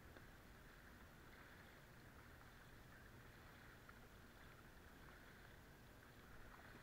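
Faint water sounds of a kayak being paddled: the paddle blades dipping and water moving along the hull, with a few small ticks of drips.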